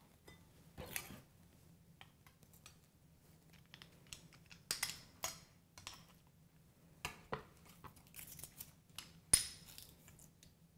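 Garlic press being worked over a cutting board: scattered short clicks, taps and light scrapes as garlic is pressed and the press is scraped out with a small spatula.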